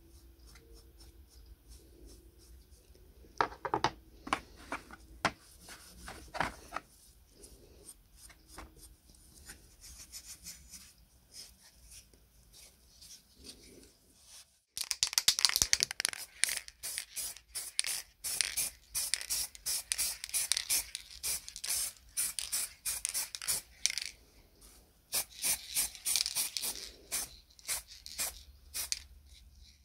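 Gloved hands rubbing small blackened steel parts with a pad in a plastic tray. The first half is quieter handling with a few light clicks. About halfway through, brisk, rapid back-and-forth rubbing strokes begin and continue.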